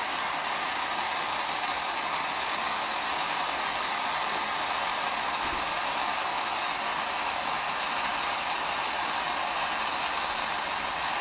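Steady, even whooshing noise that holds at the same level without change.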